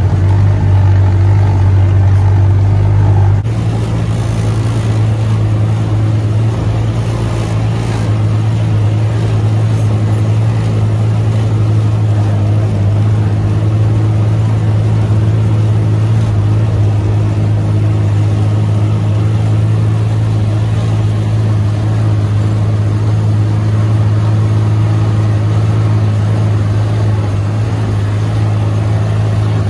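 Vehicle engine running steadily while driving, a low, even drone heard from inside the cab. About three and a half seconds in, the engine note drops a little and then holds steady.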